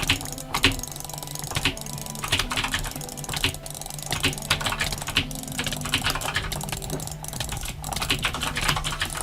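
Rapid, irregular clicking, several clicks a second, over a steady low hum.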